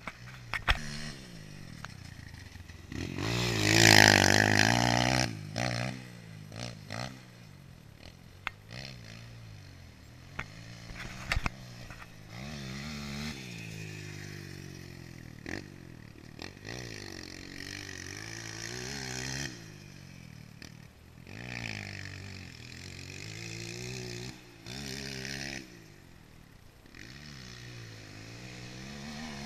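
Dirt bike engine revving up and easing off over and over as it rides the motocross track, its pitch rising and falling with each burst of throttle. It is loudest about four seconds in, and a few sharp clicks come along the way.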